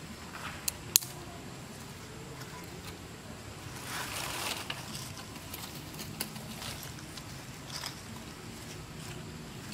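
Sticks and dry leaves being handled: a sharp crack about a second in, a rustle of leaves and wood around four seconds, and scattered light clicks, over a faint steady low hum.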